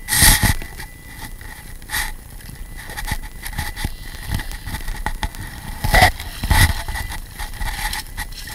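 Water splashing and sloshing in several loud bursts as a long-handled stainless steel sand scoop is worked in shallow water and emptied into a floating mesh sifter. A faint steady high tone runs underneath.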